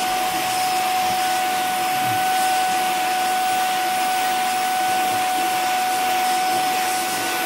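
Vacuum cleaner running steadily, a constant high motor whine over an airy hiss, its nozzle being drawn over a cat's coat.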